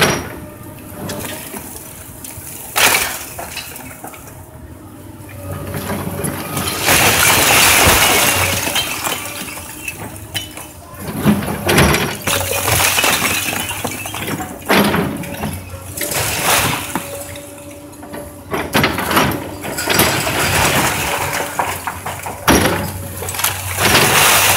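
Komatsu 200 excavator's diesel engine running while its bucket and thumb pull down a brick chimney: a long crash of falling brick about seven seconds in, then repeated knocks and clatters of bricks and rubble.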